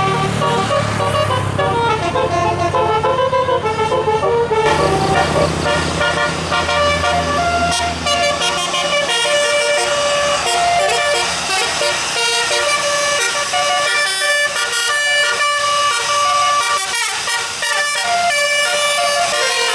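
Tour bus's telolet musical air horn playing a quick multi-note tune, the notes stepping up and down, loud over the bus's engine running. The engine rumble fades out about eight seconds in while the horn tune carries on.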